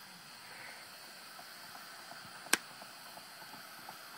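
A golf club strikes the ball once with a single sharp click about two and a half seconds in, over a faint steady hiss.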